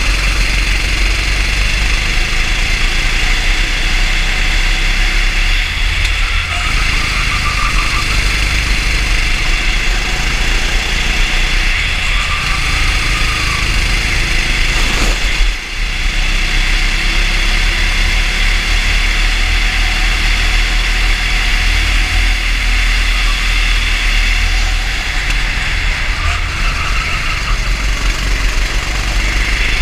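Racing kart's engine running steadily at speed, picked up by a camera mounted on the kart, with a steady hiss over it. The level dips briefly about fifteen seconds in.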